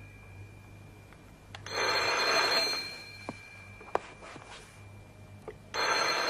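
Telephone ringing twice, each ring about a second long and about four seconds apart, with a few faint clicks in the gap between rings.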